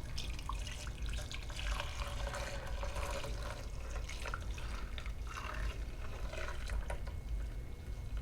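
Hot water pouring, splashing and trickling into the tank of an ultrasonic cleaner, with an uneven patter of drips and splashes.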